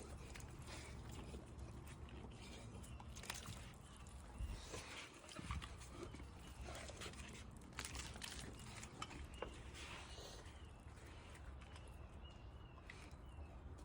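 Dogs eating raw food: faint wet chewing and licking with scattered small clicks.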